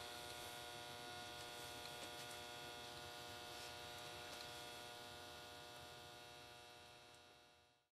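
Faint steady electrical hum with many evenly spaced overtones over a light hiss, fading out near the end.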